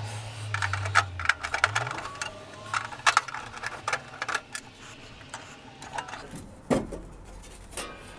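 Quick runs of clicks and clacks as circuit breakers are switched off and the plastic cover of a pool equipment control panel is handled and lifted off. A low hum stops about two seconds in.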